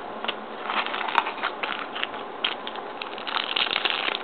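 Hockey card pack wrapper and trading cards being handled, a quick, irregular run of crackles and rustles.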